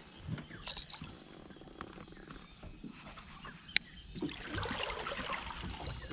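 Low handling noise and water against an aluminium boat hull, with one sharp click about four seconds in and a louder stretch of rustling and water noise after it.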